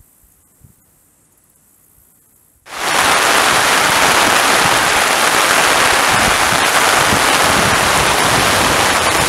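Heavy rain pouring down in a steady downpour. It starts abruptly about three seconds in, after a quiet stretch.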